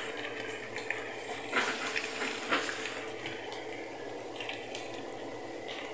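Pot of chicken kaldereta simmering, a steady bubbling hiss, with a few short knocks over it.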